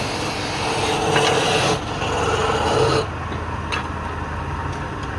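Wood being worked on a running woodturning lathe: a steady scraping rub over the motor's low hum. The scraping falls away about three seconds in while the hum continues.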